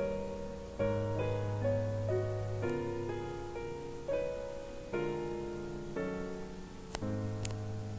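Background piano music: slow, held chords that change about every second or two. Two short clicks near the end.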